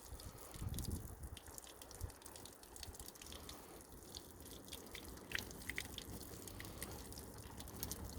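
Boiling water dripping and trickling off a car bumper after being poured over it to heat the plastic: faint, irregular drips and small splashes.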